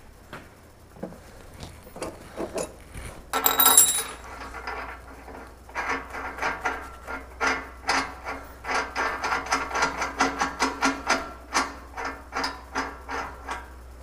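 A loud ringing metal clang, then a steady run of metallic clicking strokes, about three a second for several seconds, as a ratchet wrench runs down the nut on the steel pivot of a Jeep CJ-7's swing-out tire carrier.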